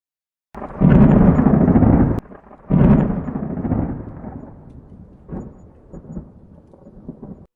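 Thunder: two loud, low rolling claps, the first about half a second in and the second about three seconds in, which dies away into fainter rumbles before cutting off near the end.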